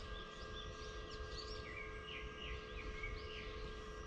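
Small birds chirping faintly in a quick string of short, high, curving notes over a low steady outdoor background hum.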